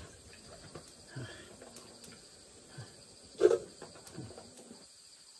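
Quiet background with faint crickets chirring and a few small clicks, broken by one short, louder sound about three and a half seconds in.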